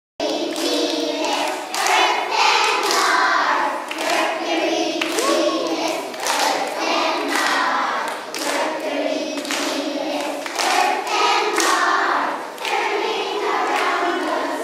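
A group of young children singing together, with hand claps keeping time along with the song.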